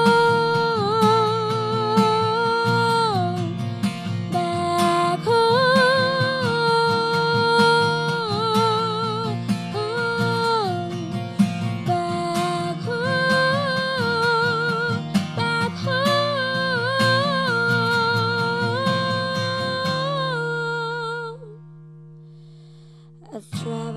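Live female vocal singing a wordless melody with vibrato over strummed acoustic guitar. Near the end the strumming stops on one ringing chord, the voice trails off, and after a brief hush the guitar starts again.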